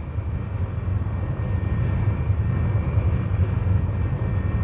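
Jet aircraft engines running in flight: a steady low rumble under a thin high whine, swelling a little over the first second and then holding level.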